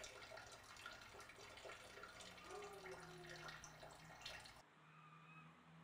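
Near silence: faint room noise with light crackling ticks, which drops away abruptly near the end.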